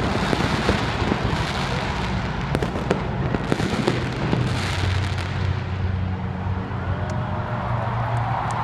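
Aerial fireworks going off in a dense run of crackling and popping bursts, which thin out over the last few seconds.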